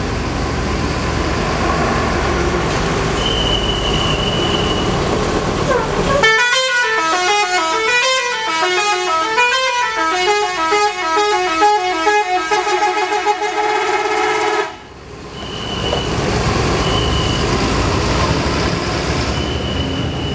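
A tour coach's telolet horn plays a tune: several horn tones stepping up and down in a quick, repeating melody for about eight seconds, then cutting off suddenly. Before and after it there is steady vehicle engine noise, with a few short high beeps.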